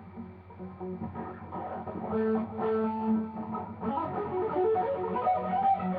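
Overdriven electric guitar playing a smooth legato lead through a Zoom MS-50G multi-effects patch, with a Wampler Ecstasy overdrive and Xotic RC Booster for drive. It holds a few long notes, then breaks into a quicker run of notes about four seconds in.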